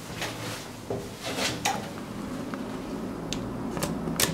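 Elevator doors being opened and passed through: a series of mechanical clicks and clatters over a low hum, with the loudest, sharpest click near the end.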